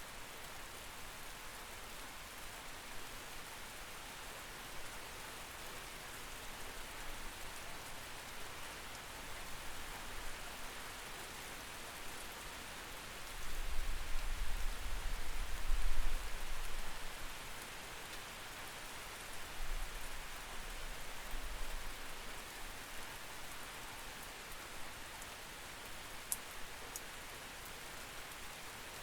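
Steady rain heard through a window, an even hiss of many drops. About halfway through, a low rumble swells twice, and a few sharp drip ticks sound near the end.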